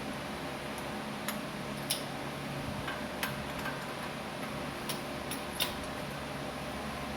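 Half a dozen sharp, irregular metal clicks from a shop press and bearing-removal cups as the press is cranked down to push a front hub bearing out of its steering knuckle, over a steady low hum.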